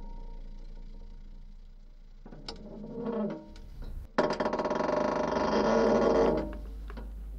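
Experimental music built from mechanical, found-sound textures: faint held tones and scattered clicks, then a sudden dense wash of noise about four seconds in that lasts about two seconds and drops back to a low hum.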